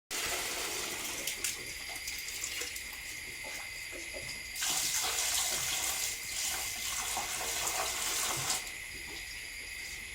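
Water running or spraying in a steady hiss, louder for about four seconds in the middle.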